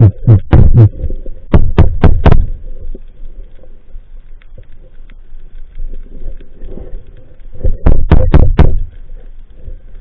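Muffled low thumps and water rushes picked up by an SJ4000 action camera in its underwater housing as the diver kicks down toward the bottom. They come in quick groups of several strokes: one at the start, another about a second and a half in, and a third near the end, with a faint steady hum between.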